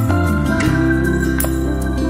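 Instrumental background music with sustained notes over a bass line and a steady beat.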